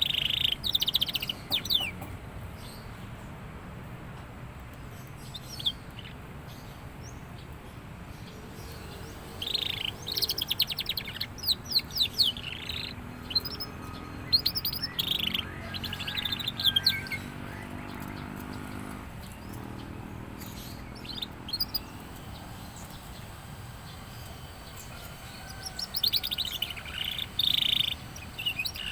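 Young canary singing in bursts of rapid chirps and trills, a few seconds each with long pauses between, as it starts to come into full song.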